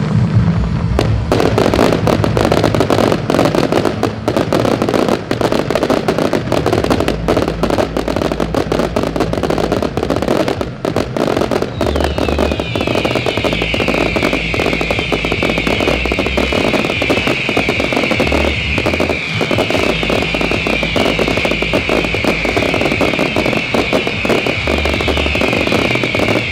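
Fireworks finale: a dense, continuous barrage of rapid crackling reports, joined about twelve seconds in by a chorus of many falling whistles that carries on to the end.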